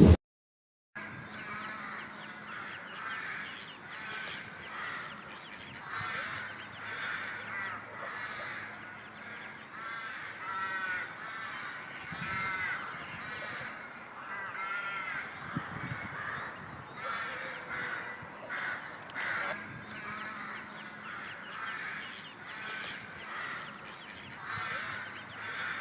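A flock of birds calling, many short arched calls overlapping throughout.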